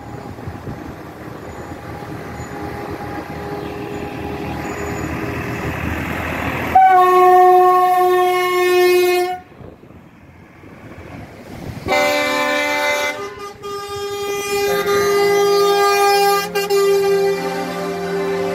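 Vehicle horns sounding in protest from a column of tractors and trucks: one long horn blast about seven seconds in, then after a short pause several horns blaring together at different pitches. Before the horns, engine and road noise builds steadily as traffic approaches.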